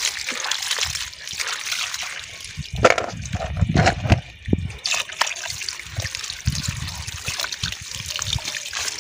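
Tap water running and splashing onto salt-brined napa cabbage leaves in a plastic tub as hands rub and slosh the leaves to rinse the salt off, with irregular wet splashes.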